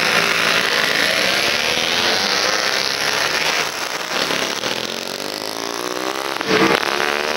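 A field of vintage racing motorcycles accelerating away from a standing start, many engines revving together with pitches rising as they pull away. The sound eases slightly as they draw off, then a louder burst of engine noise comes about six and a half seconds in.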